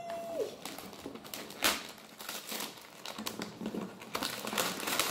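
Gift wrapping being torn open and crumpled: irregular crinkling and rustling, with one louder crackle about one and a half seconds in.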